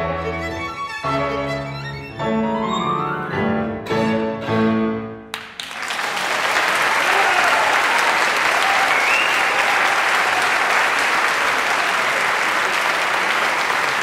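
Violin and piano playing the last bars of a classical piece, with a rising violin run; the music ends about five seconds in and an audience applauds steadily.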